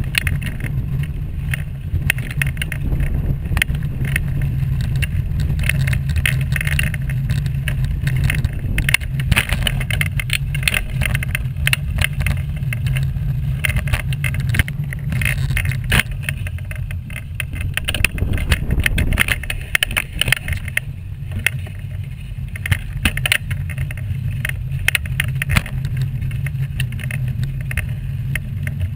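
Wheelchair rolling along a path: a steady low rumble with constant irregular rattling and clicking from the wheels and frame over the surface.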